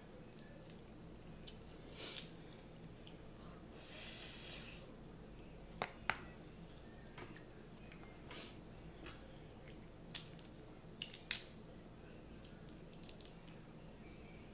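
Snow crab leg shells cracking and clicking as they are broken apart by hand, with soft chewing and a short breathy hiss about four seconds in.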